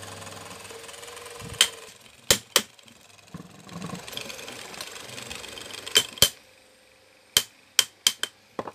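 Stand fan's small electric motor running with a slight humming noise after its bushes were refitted, dying away about two seconds in. Then about ten sharp knocks and clicks in small clusters as the motor housing is handled and adjusted.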